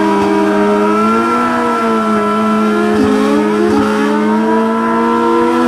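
Two drag-racing engines held at steady high revs, one pitched a little above the other.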